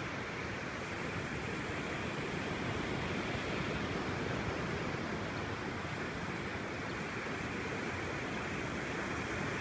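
Ocean surf breaking and washing up the beach: a steady, even rush of noise.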